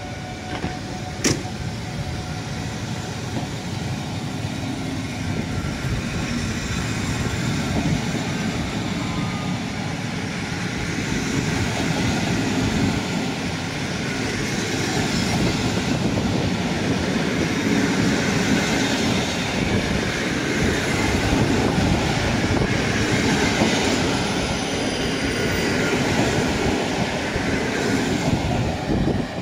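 Locomotive-hauled passenger coaches rolling past along the platform track: a steady rumble and hiss of wheels on rail that slowly grows louder, with a sharp click about a second in. It drops off just before the end as the last coach goes by.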